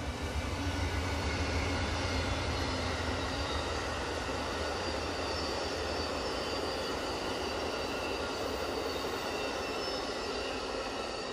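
Amtrak passenger train passing at speed. The low drone of a GE Genesis P42DC diesel locomotive is strongest in the first few seconds and then eases off. The steady rumble of the Superliner cars' wheels on the rails follows, with thin high tones running over it.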